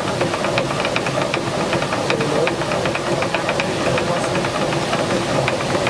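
Traditional water-driven stone grain mill running: the upper millstone turns with a steady rushing, grinding noise, and the wooden grain feeder rattles against it in quick, irregular clicks, several a second.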